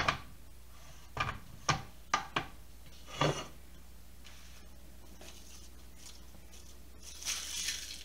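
A butternut squash and a chef's knife knocking on a plastic cutting board as they are handled and set down: about six sharp knocks in the first three and a half seconds. Near the end comes a short scraping, like hands rubbing over the squash's skin.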